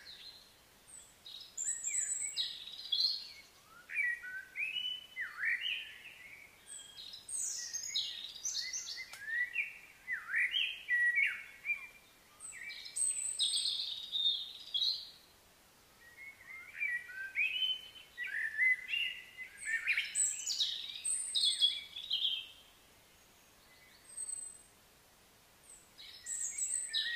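Songbirds singing: quick runs of whistled and chirping notes that sweep up and down in pitch, coming in phrases a few seconds long with short pauses between them.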